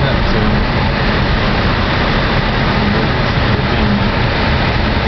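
Honda City driving, its engine and road noise heard steadily from inside the cabin.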